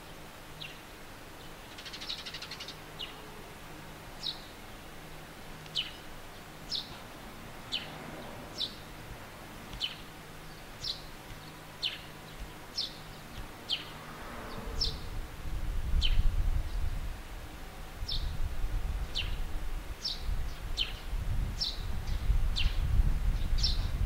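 Eurasian tree sparrow chirping: single short chirps, each falling in pitch, repeated about once a second. About halfway through a low rumble comes in and grows louder than the chirps.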